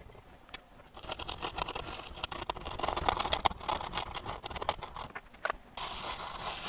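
Scraping and scratching on a circuit board: a metal pick and a plastic pry tool working dried, leaked capacitor electrolyte off the board in many quick scratchy strokes, followed near the end by a steadier hissing scrub.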